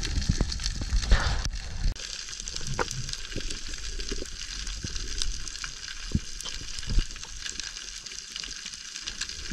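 Underwater reef ambience: a dense, continuous crackle of snapping shrimp, with a few louder single clicks. A low rush of water movement fills the first two seconds, then drops away.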